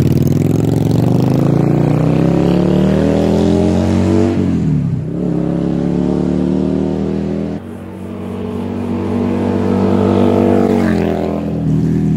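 Yamaha V-Star 650's V-twin through Vance & Hines Short Shots pipes, accelerating through the gears: the engine note climbs, drops back at an upshift about four and a half seconds in, climbs again, and drops at another shift about eleven seconds in.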